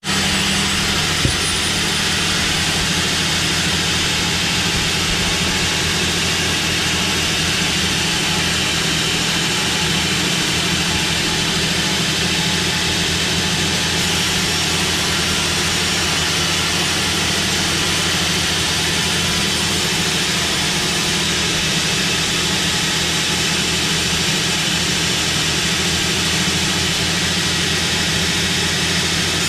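Sawmill machinery running steadily: a continuous loud machine noise with a low engine hum underneath, and a single short knock about a second in.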